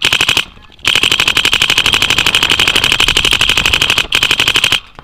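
Dye DM12 paintball marker firing rapid streams of shots, about a dozen a second: a short burst at the start, then after a pause of about half a second a long burst of some three seconds, broken once briefly near the end.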